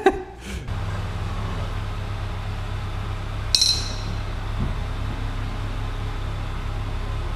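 A steady low hum, with a single short, high, ringing metallic clink about three and a half seconds in: a metal pipe levered in the wheel arch to roll the fender, knocking against metal.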